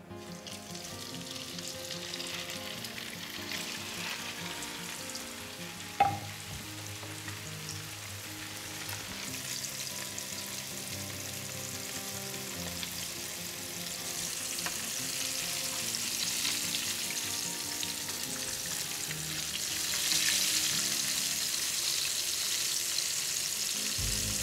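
Flour-coated cod fillets shallow-frying in hot oil in a frying pan, a steady sizzle that grows louder about twenty seconds in. A single brief knock sounds about six seconds in.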